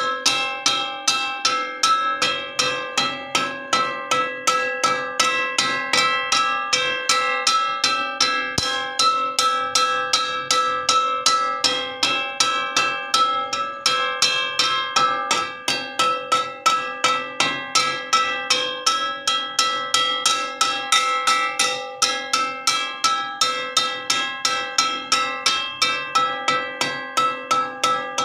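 A metal wok struck over and over in a steady rhythm, about four strikes a second, each hit ringing with several bell-like tones.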